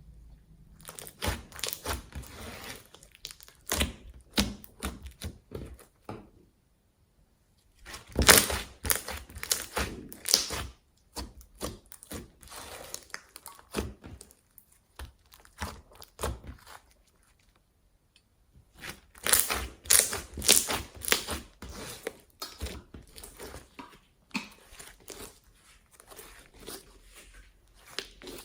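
Slime being squeezed and stretched by hand, giving bursts of crackling, popping clicks with short pauses between handfuls.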